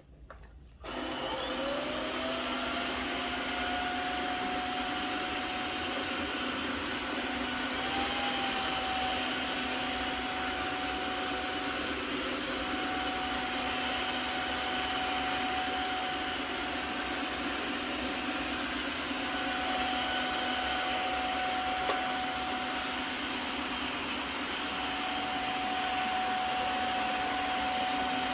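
Tineco cordless wet-dry floor vacuum switching on in auto mode: the motor spins up with a rising whine about a second in, then runs steadily with a high whine and airflow rush.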